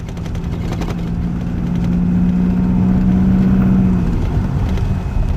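Motor vehicle engine running at a steady pitch with low rumble, getting louder toward the middle; its steady hum drops away about four seconds in.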